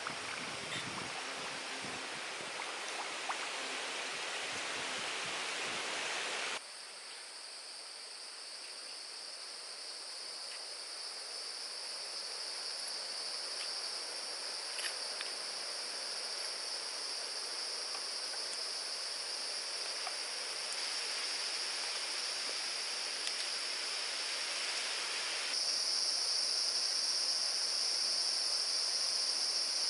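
Insects in the forest buzzing as a steady high-pitched chorus, which steps up louder near the end. For the first six seconds or so a broad rushing noise lies over it and then cuts off abruptly.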